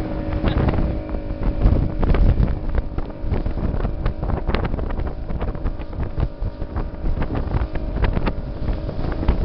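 Speedboat motor running at speed with a steady drone, clearest in the first second, under heavy wind buffeting on the microphone and water rushing along the hull, with frequent short knocks as the boat crosses the chop.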